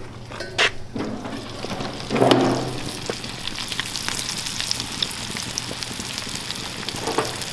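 Breaded turtle meat and floured turtle eggs frying in hot oil in a 12-inch cast iron pan, a steady crackling sizzle. A brief clunk about two seconds in is the loudest moment, and the sizzle grows busier after it.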